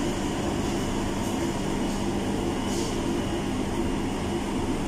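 Steady mechanical hum of running ventilation machinery, such as a kitchen air-conditioning or extractor unit, with a low steady tone.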